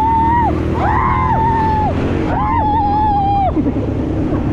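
Long whooping yells of excitement from riders: three held high cries, each rising at the start and dropping off at the end. Under them an ATV engine runs steadily.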